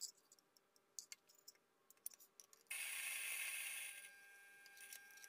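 Whole coffee beans clicking and rattling as a single dose is poured into a Eureka Mignon Specialita espresso grinder. The grinder then starts: its 55 mm flat burrs grind the beans with a loud steady noise for about a second and a half, then the sound drops to a quieter hum with a steady whine as the last of the dose goes through.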